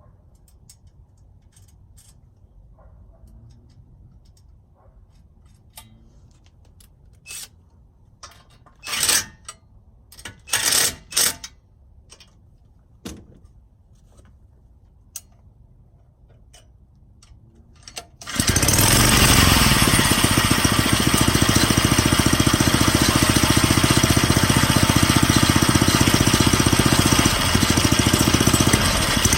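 Pocket bike's small four-stroke engine: a few clicks and several short loud bursts, then about 18 seconds in the engine catches and runs loudly and steadily, with rapid firing pulses.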